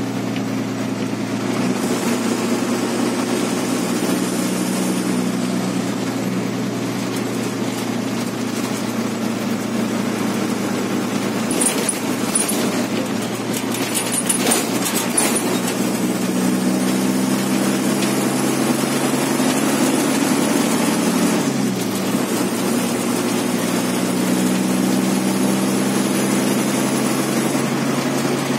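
MSRTC bus's diesel engine running steadily under way, heard from inside the cabin as a steady drone, with a few light rattles about halfway. A little past two-thirds of the way, the engine note dips briefly and then climbs again.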